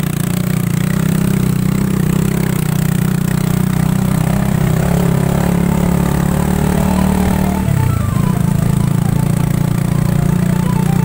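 Motorcycle engine running steadily under way, carrying several riders. The engine note dips briefly about three quarters of the way through, then steadies again.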